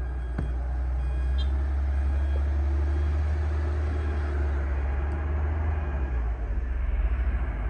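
Excavator's diesel engine running with a steady, deep drone, plus a few faint knocks.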